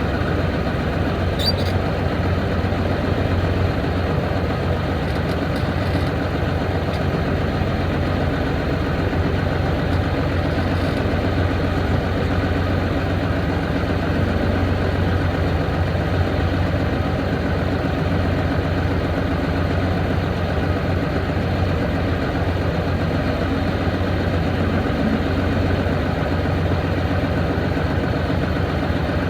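A heavy engine idling steadily, an even low rumble that does not change.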